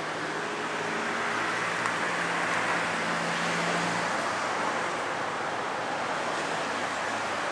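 Steady outdoor background noise, an even hiss with a faint low hum under it that fades out about halfway through.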